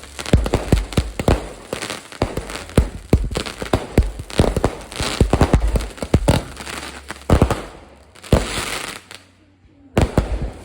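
Fireworks going off: a rapid run of sharp bangs and crackles that thins out near the end, with one last bang shortly before the close.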